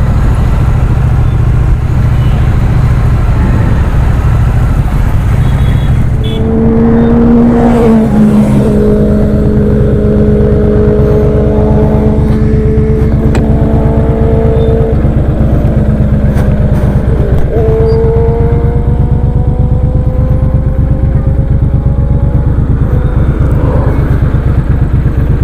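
Triumph Street Triple and Benelli motorcycle engines growling under acceleration over a steady low rumble. From about six seconds in, the engine note climbs and drops back at each gear change, several times.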